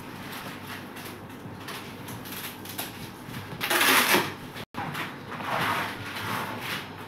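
Printed protective plastic film being cut and peeled off aluminium composite cabinet panels: scratchy scraping and tearing, loudest in a burst about four seconds in.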